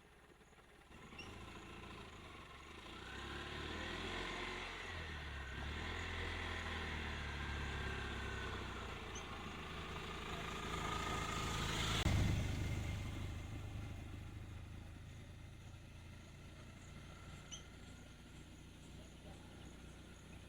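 A motor vehicle's engine approaching, passing closest about twelve seconds in, then fading away.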